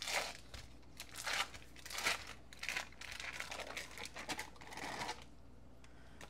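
Foil wrapper of a block of cream cheese crinkling in a run of bursts as it is peeled open by hand. It falls quiet near the end.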